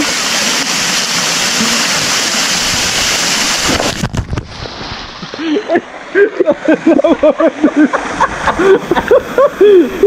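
Waterfall splashing down close by, a loud steady rush of water that cuts off abruptly about four seconds in. After it, quieter water and a person's voice in short rising-and-falling sounds without clear words.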